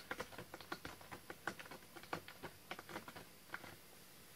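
Faint, quick, irregular light clicks and taps, several a second, stopping about three and a half seconds in.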